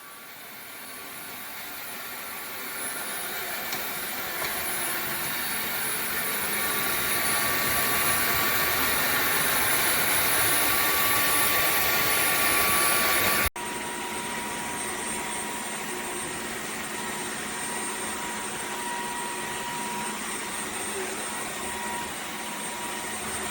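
Cordless wet-and-dry floor vacuum running with a steady whooshing whine. It grows gradually louder over the first dozen seconds, cuts off abruptly about halfway through, then carries on steadily at a lower level.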